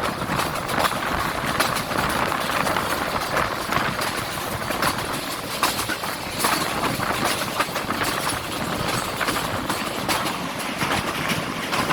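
Train noise: a steady rush with frequent sharp clicks and knocks.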